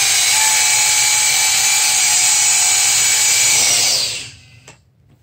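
Electric ducted fans of a small hovering test craft running flat out with a high-pitched whine over a rushing hiss. About four seconds in they wind down in pitch and cut off as the craft sets down.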